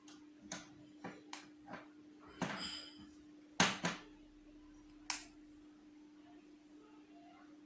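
Handling noises: a scattering of sharp small clicks and taps, the two loudest close together about three and a half seconds in, with a short rustle before them, over a steady low hum.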